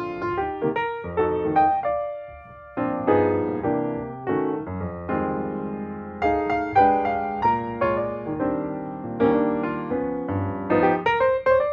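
Background music: solo piano playing a gentle melody over chords.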